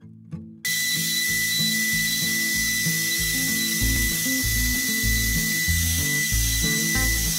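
Makita trim router spindle on a homemade wooden CNC mill, running at speed with a steady high whine and hiss as a small engraving bit cuts letters into plywood. It starts suddenly about half a second in. Music with plucked low notes plays underneath throughout.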